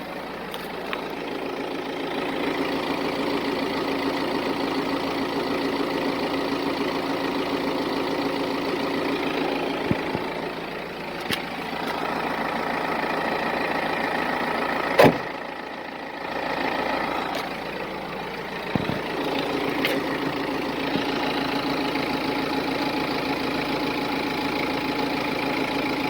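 BMW B47 four-cylinder diesel engine idling steadily, with a few sharp clicks or knocks standing out now and then; the loudest comes about halfway through. This is the noise whose cause the owner does not know.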